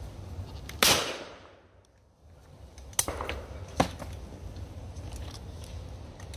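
A single shotgun shot about a second in, its report dying away over about a second. Two sharp clicks follow near three and four seconds in as the gun is broken open after the shot.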